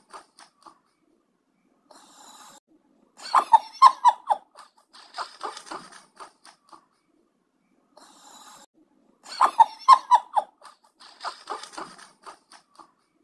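A sleeping cat snoring in a slow, regular cycle. A loud pulsing snore comes about every six seconds, with softer breath sounds between.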